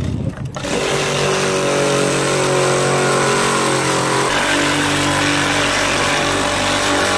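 Electric ice-shaving machine grinding ice cubes into shaved ice: a steady motor drone with a gritty crunching hiss that starts about half a second in, the tone shifting a little about four seconds in.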